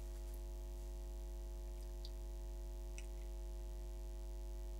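Steady low electrical hum with a stack of evenly spaced overtones, and a few faint ticks about two and three seconds in.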